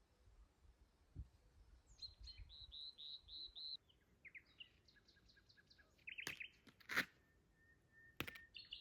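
Faint songbirds singing: a run of about six quick repeated high notes, then other trilling and descending phrases from more than one bird. A few sharp clicks near the end are louder than the birds.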